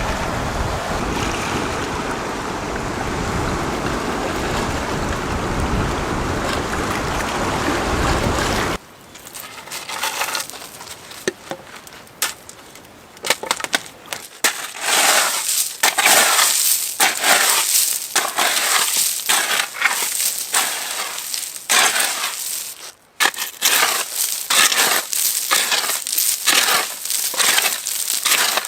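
A steady rushing noise that stops abruptly about nine seconds in. After it comes a long, irregular run of crunching and rustling sounds, one or two a second.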